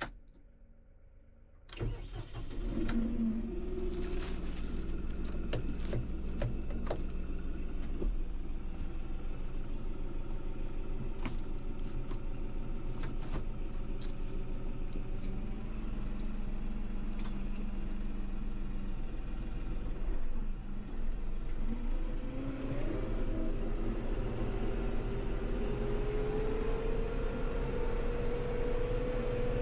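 New Holland Workmaster 55 tractor's diesel engine starting about two seconds in, then running steadily at idle, heard from inside the cab, with scattered clicks from the controls. Over the last several seconds a tone climbs slowly in pitch as the revs come up.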